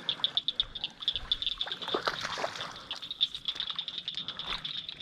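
Frogs calling in an evening chorus: a steady stream of short, high, pulsing calls several times a second. A brief burst of noise comes about two seconds in.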